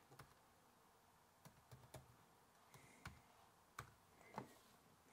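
Faint computer keyboard keystrokes: a handful of separate, irregular key clicks as a short entry is typed.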